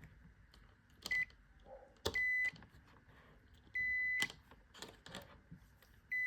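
Digital multimeter's continuity beeper sounding four times as the probes touch the transformer's primary circuit on the far leg of its thermal fuse, each beep starting with a probe click. The first and last beeps are brief and the middle two last about half a second. The beeps mean a closed circuit on that side of the fuse, which is itself open.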